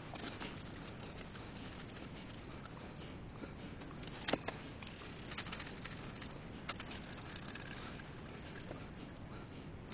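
Hands spreading wood glue over sycamore and oak blocks and handling the pieces: soft rubbing and shuffling with a few light knocks of wood on wood, the loudest about four seconds in.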